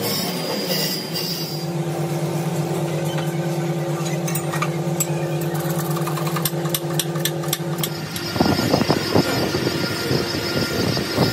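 A steady workshop machine hum with a few clicks. About eight seconds in it gives way to the rough, steady noise of a crankshaft grinding machine's wheel grinding a crankshaft journal, sparks flying.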